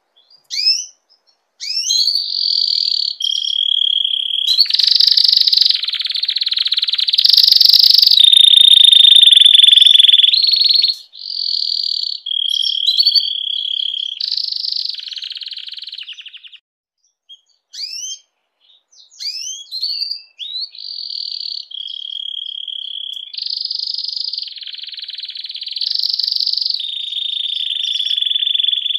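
Domestic canary in breeding condition singing: high-pitched phrases of quick rising chirps alternating with long, fast trills and rolls, with a pause of about three seconds partway through.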